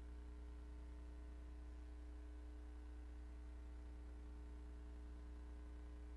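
Steady low electrical hum with a faint hiss underneath: mains hum on the audio line, with no other sound.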